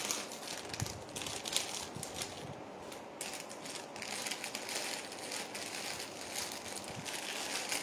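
Rustling and scattered small clicks of jewellery pieces being handled and put away.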